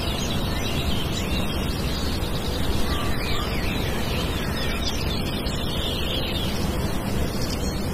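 Small birds chirping over a steady rushing noise. The chirps thin out about halfway through.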